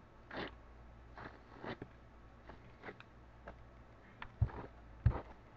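Short scratchy strokes of a brush pulled through doll hair fibre to fray it out, about one every half second, with two sharper knocks near the end.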